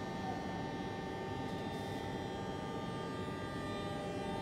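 A yellow Dutch NS passenger train drawing into an underground platform, heard as a steady hum and rumble with several held tones.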